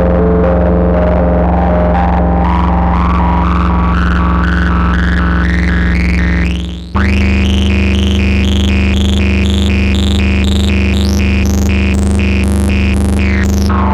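Moog Subsequent 25 analog synthesizer playing a sequenced, distorted patch: a held bass note under a fast repeating pattern that grows steadily brighter. About halfway through, the bass moves to a new note with a quick upward sweep, and the rapid pattern carries on above it.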